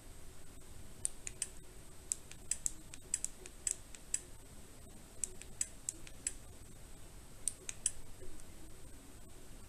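Small buttons on a budget action camera clicking as they are pressed to step through its settings menu: quick, sharp clicks in runs of three to five presses with short pauses between runs.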